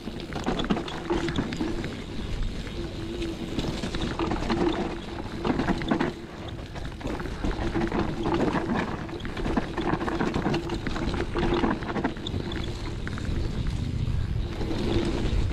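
Hardtail mountain bike ridden fast down a muddy trail: tyres running over dirt and roots, the bike clattering and rattling over bumps, with wind on the microphone. A low hum comes and goes throughout.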